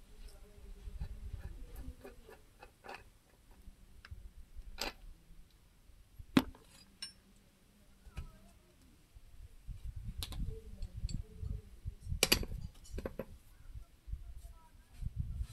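Metal hand tools and parts clinking and knocking during work on a tractor's front wheel hub, with scattered light clicks and dull handling bumps. A sharp metallic clink stands out about six seconds in, and another about twelve seconds in.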